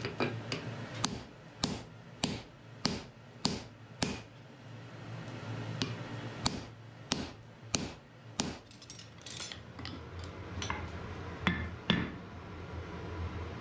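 Hand hammer striking red-hot wrought iron on an anvil, at first directly and then on a handled top tool held against the hot iron: a steady run of about eight blows, a pause, four more, then lighter taps near the end.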